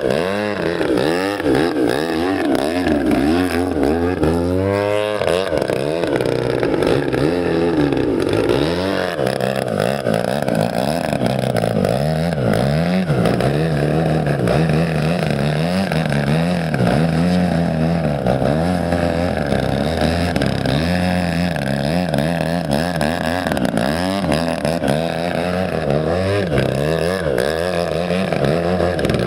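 The 120cc-class petrol engine of a Yak 54 radio-controlled aerobatic model plane in flight. Its pitch rises and falls throughout, with a quick rise about five seconds in.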